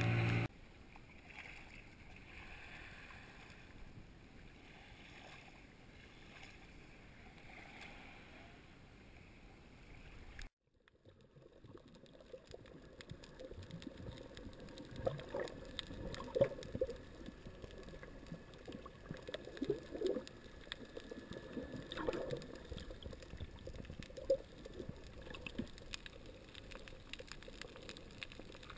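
Faint, muffled water sound heard underwater while snorkelling, with scattered short gurgles and bubbling pops. It follows a quieter stretch of faint steady noise that cuts out about ten seconds in.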